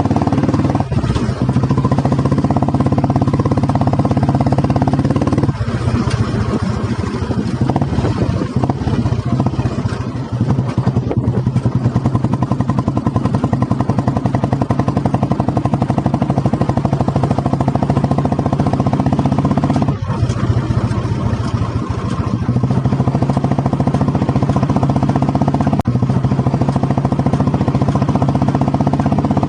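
1985 Royal Enfield Bullet 350's single-cylinder four-stroke engine running through a loud exhaust, its beat steady as the bike is ridden, easing off and picking up again a few times.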